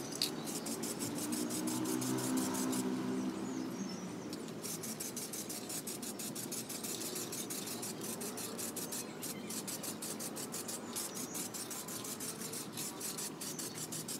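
Aerosol spray paint can being shaken, the mixing ball inside rattling in rapid, even clicks of about seven a second, with short breaks.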